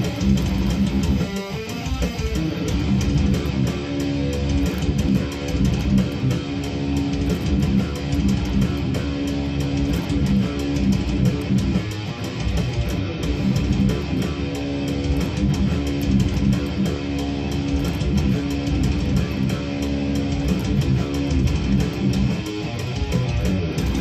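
Rock band music led by strummed electric guitar with bass guitar, playing continuously.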